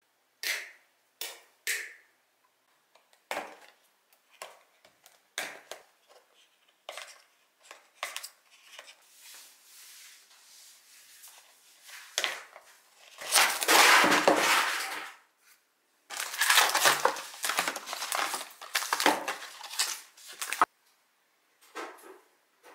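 Scattered light taps and clicks, then, a little past halfway, two long stretches of loud crinkling and rustling as plastic wrapping and a cardboard cosmetics box are handled and opened.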